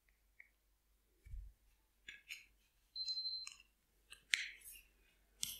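Faint, scattered clicks of a Xiaomi TV remote's buttons being pressed and the plastic remote handled while it is paired with the TV. A short high beep sounds about three seconds in.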